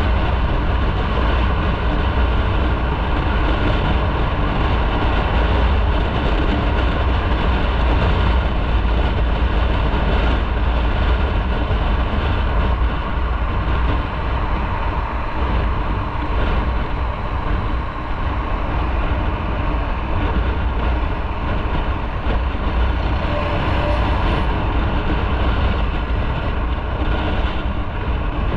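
Onboard sound of a motorcycle riding at steady speed: engine and wind noise blending into a continuous low rumble without breaks.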